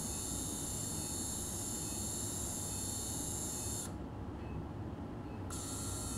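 High-speed otologic surgical drill with a 0.8 mm diamond burr running with a steady high whine as it grinds down the hydroxyapatite head of a titanium TORP prosthesis. About four seconds in, the drill stops for about a second and a half, then starts again.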